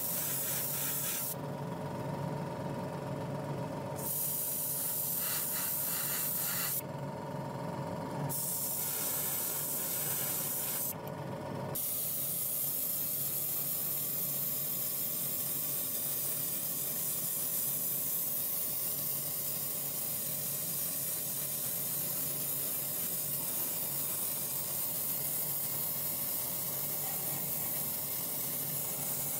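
Airbrush spraying paint with a steady hiss, with a steady hum underneath. The hiss stops three times in the first twelve seconds as the trigger is released, then runs on without a break.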